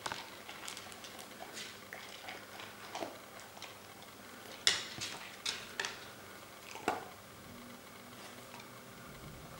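Red plastic Kong Wobbler food toy being nosed and tipped by a dog on a wooden floor: the toy rocks and clacks with food rattling inside, in irregular clicks and knocks. A handful of sharper knocks come about halfway through, the loudest about five seconds in.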